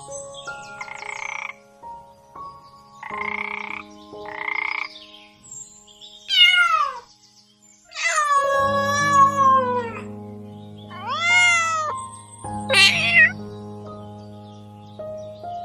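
A toad croaking three times in short rough bursts, then a kitten meowing in several drawn-out calls, over steady background music.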